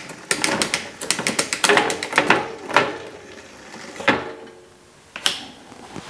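Bicycle rear drivetrain clicking: the chain running over the rear cassette cogs and through the rear derailleur, a rapid string of clicks with a few louder single clicks. The derailleur is shifting cleanly now that the cable tension has been raised with the barrel adjuster.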